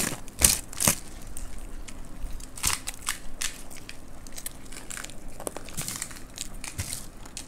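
Close-up crunching and crackling of several people biting and chewing puffed rice (muri) and crisp pani puri shells, in irregular crunches with two loud ones about half a second and a second in.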